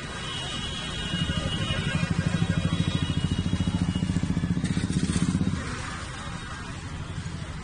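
Vehicle engine running: a low, rapidly pulsing drone that swells about a second in and eases back near six seconds, with a brief hiss around the five-second mark.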